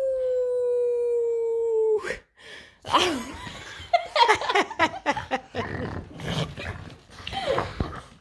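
A long howl held for about two seconds, slowly falling in pitch. After that a woman laughs while a French bulldog grumbles and whines in play.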